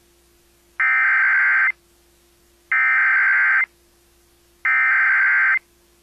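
Emergency Alert System SAME header: three identical bursts of warbling digital data tones, each just under a second long and about a second apart. They encode and announce the start of an EAS tornado warning broadcast over the radio.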